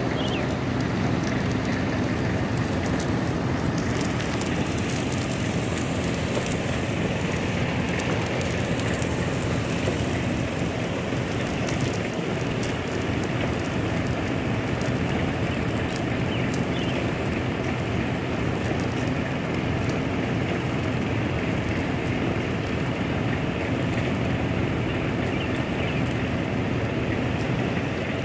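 Sealcoat spray rig running steadily, with the hiss and crackle of sealer spraying from a hand wand onto asphalt.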